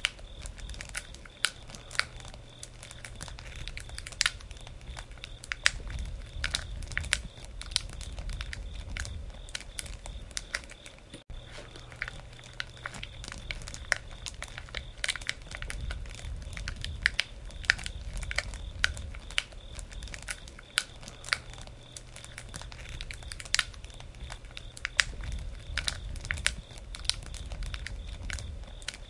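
Wood campfire crackling, with many irregular sharp pops and snaps over a low rumble of the burning fire.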